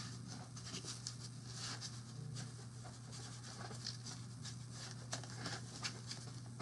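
Packaging being handled, with irregular small scratches, rustles and clicks, as a tightly packed statue head is worked out of its packing.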